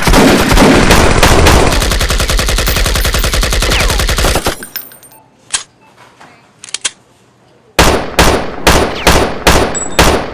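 Gunfire: a long, rapid burst of automatic fire from a compact submachine gun for about four and a half seconds. After a lull with two or three isolated cracks, a steady run of single shots starts about eight seconds in, roughly three a second.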